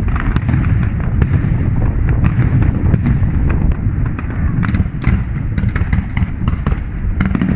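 Fireworks display going off: a dense run of bangs and crackles over a continuous heavy low rumble.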